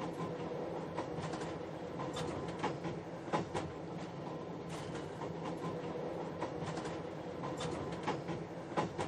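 Train running slowly over track and points while slowing, with a steady engine drone and wheels clicking irregularly over rail joints and switches. The sharpest clicks come a little past three seconds in and near the end.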